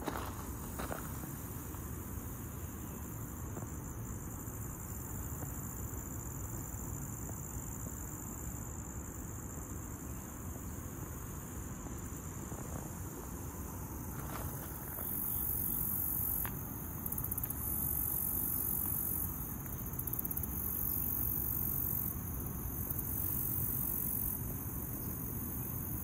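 Insects calling by the river: a steady, high-pitched trill throughout. A louder, even higher buzzing chorus comes in about halfway and runs in spells a few seconds long with short gaps. A low, steady rumble lies underneath.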